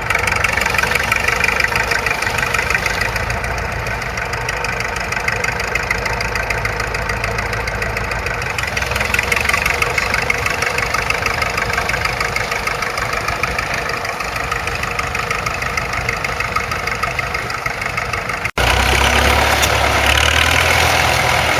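Vintage crawler tractor engine running steadily with a fast, even firing beat. Near the end the sound cuts abruptly to a louder, deeper engine.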